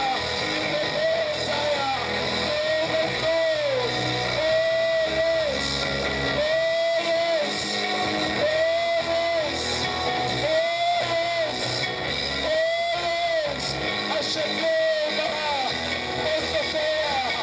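Music with guitar: a short arching melodic phrase repeats about every two seconds over a steady accompaniment.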